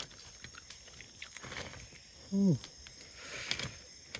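Night insects such as crickets chirring steadily, with small clicks and a soft rustle of fingers peeling the skin off a grilled fish. About two and a half seconds in, a short voice sound falls in pitch.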